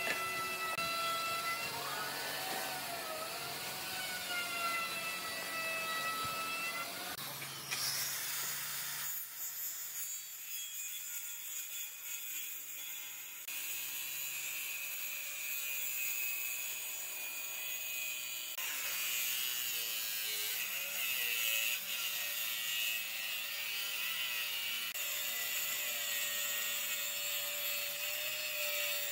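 Maktec handheld circular saw cutting through end-grain wood blocks, its motor whine wavering and dipping in pitch as the blade works through the wood. The sound changes abruptly several times.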